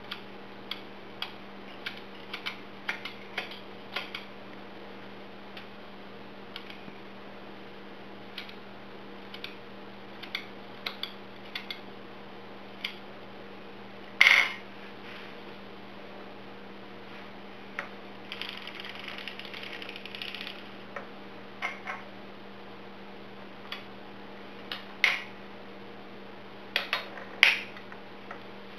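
Harmony Knitter circular sock machine, its metal needles clicking at irregular intervals as they are moved by hand with a hooked tool to set up a heel, with a louder knock about halfway through and a couple of seconds of rattling about two-thirds of the way in. A steady low hum sits underneath.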